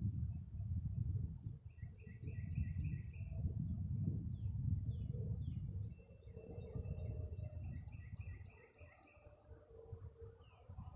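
Gusty wind buffeting the microphone in uneven surges that die down about six seconds in. A songbird sings twice, each time a quick run of repeated short notes, and a faint steady hum of distant highway traffic carries on underneath.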